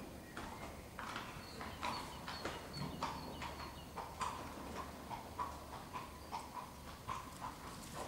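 Horse's hoofbeats at a trot on a sand arena surface: short, even strikes, about two to three a second.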